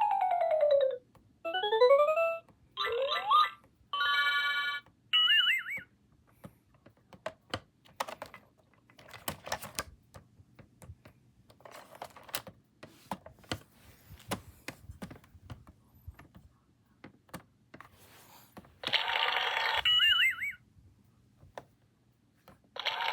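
VTech Touch and Teach Word Book's electronic sound effects: a falling tone glide, a few quick rising glides, a short buzzy tone and a warbling tone in the first six seconds. Then come many scattered clicks and taps, and another warbling electronic sound about three-quarters of the way through.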